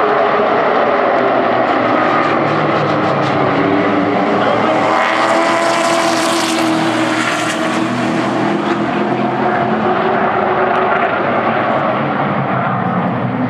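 A pack of short-track stock race trucks running at racing speed, several engines at once with pitches sliding up and down. The sound swells to its loudest as the pack passes close by, about five to eight seconds in.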